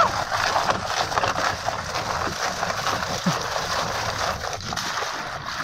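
Water sloshing and splashing, with many small crackling clicks.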